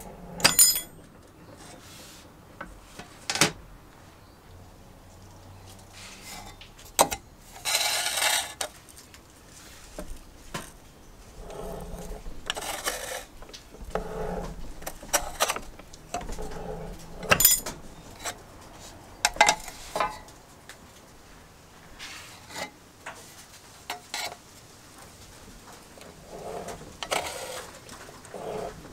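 Hand-lever benchtop metal shear cutting thin sheet metal: sharp metallic snaps as the blade shears through, and short rasping, scraping stretches as the sheet is fed and slid along the bed, with pauses between cuts.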